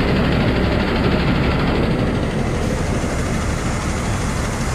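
KPI rice combine harvester's engine and machinery running steadily, a loud continuous mechanical drone with a strong low hum.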